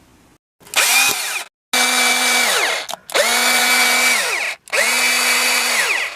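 Electric drill run in four short trigger pulls, each about a second long: the motor spins up, holds a steady whine, then winds down with a falling pitch.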